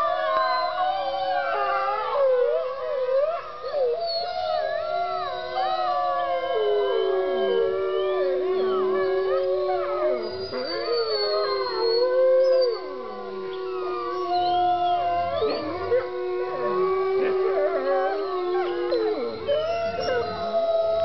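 A pack of wolves howling in chorus: several long howls at once at different pitches, some held steady and low, others wavering and sliding higher.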